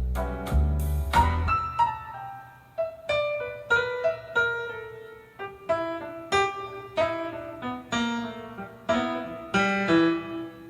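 Recorded piano music playing back through a Yamaha PC2002M power amplifier. A bass part sounds under the piano for about the first second and a half, then the piano plays single notes alone, about two a second, each dying away.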